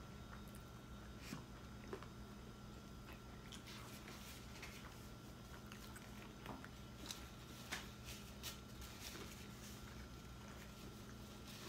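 Faint chewing and mouth sounds of people eating shrimp po' boy sandwiches, with scattered soft clicks and crunches from bites of the bread, over a steady faint hum.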